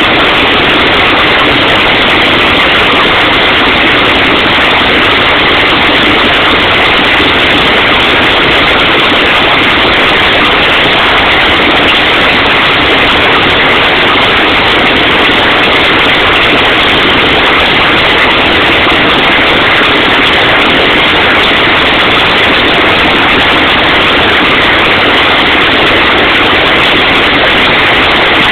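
Loud, continuous mechanical din of a 250 lb Little Giant power hammer forging hot steel, its blows running together without separate strokes.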